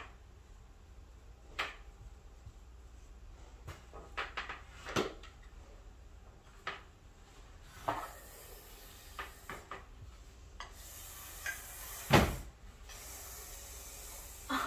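Wooden dog bed frame knocking and bumping on a tile floor as it is carried and set down: scattered knocks, the loudest a heavy thud about twelve seconds in.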